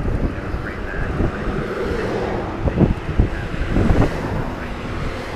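Wind buffeting the microphone with a steady low rumble during a ride on an electric bicycle, with a few sharp knocks about three to four seconds in.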